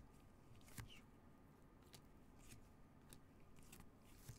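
Near silence, broken by a few faint, scattered clicks of trading cards being slid and handled in gloved hands.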